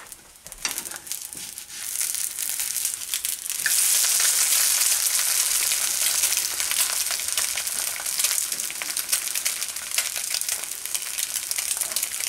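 Egg frying in oil in a non-stick pan and being flipped with a spatula: a few short clicks in the first second or so, then the sizzle grows louder about two seconds in and again near four seconds as the raw side meets the hot oil, settling into a steady crackling sizzle.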